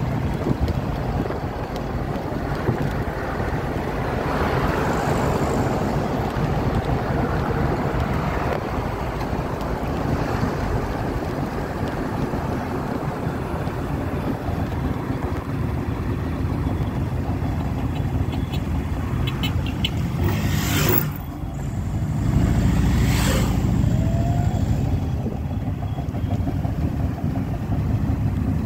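Steady engine and road noise heard from inside a car driving at highway speed, with wind rushing past. A brief dip and a couple of short clicks come about three quarters of the way through.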